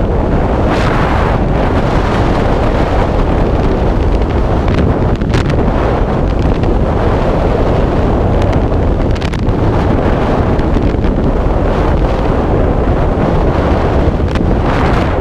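Loud, steady wind noise of freefall: air rushing over a body-worn camera's microphone.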